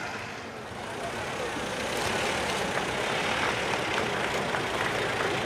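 Vintage car engine running as the open tourer drives slowly past, with a faint ticking patter over a steady rumble.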